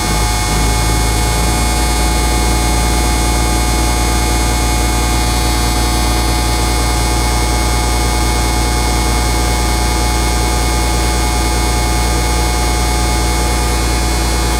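M35A2 Deuce and a Half's turbocharged multifuel diesel running at a steady idle after a cold start, with a deep hum. The idle settles just after the start.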